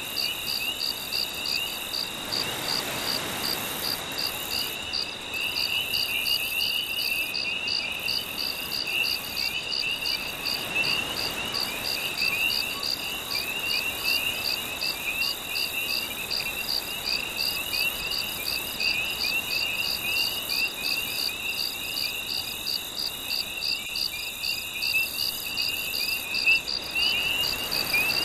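Night chorus of calling insects: an evenly pulsing high chirp repeating several times a second over a continuous scratchy lower trill. Soft swells of wave wash rise beneath it about two seconds and ten seconds in.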